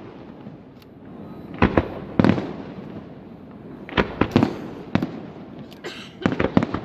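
Aerial fireworks shells bursting: groups of sharp bangs every second or two, each trailing off into an echo.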